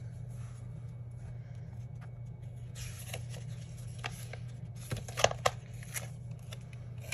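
Glossy sticker-book sheets and paper stickers being handled and rustled, with a few sharp clicks in the second half, the loudest around five seconds in, over a steady low hum.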